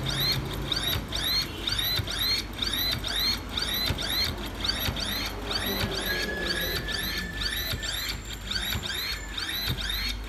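Stepper motor of an IAI RCP2-RA6C electric rod actuator making rapid repeated short moves. Each move is a brief whine that rises then falls in pitch, about three a second, evenly spaced, over a low hum.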